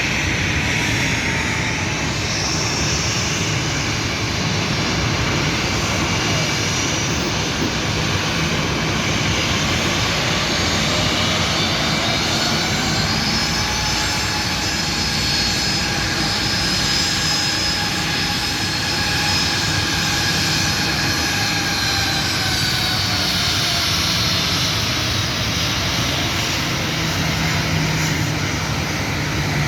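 Boeing 737-800 jet airliner's CFM56 turbofan engines running loud on takeoff: a steady rushing roar with a whine that rises in pitch about twelve seconds in, holds, then falls away near the end.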